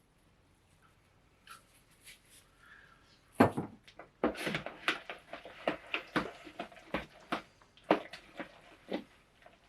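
A spicy imitation-crab and mayo mixture being stirred in a bowl, heard as irregular wet clicks and knocks of the utensil. It starts about three and a half seconds in after a quiet start.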